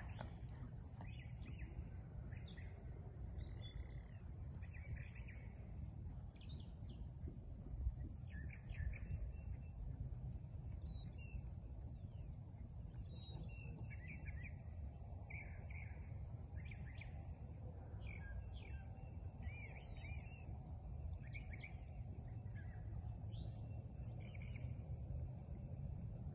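Several songbirds chirping and singing in short phrases throughout, over a low steady rumble of outdoor noise. A faint high-pitched buzz comes in twice, each time for about two seconds.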